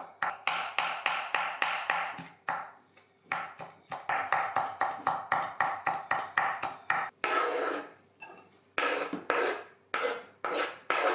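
Chef's knife rapidly chopping fresh parsley and dill on a bamboo cutting board: quick strikes, about five a second, in runs with short pauses. Near the end come a few longer scraping strokes as the chopped herbs are scraped off the board.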